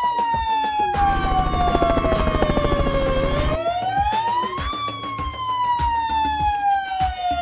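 Wailing siren of a toy fire engine, its pitch sliding slowly down, rising again about three seconds in, then falling. A rattling rumble sounds under it for a couple of seconds from about a second in.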